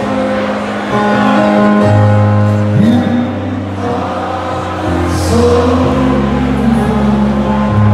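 Live band music with singing: held chords and a bass line under a voice that glides between notes.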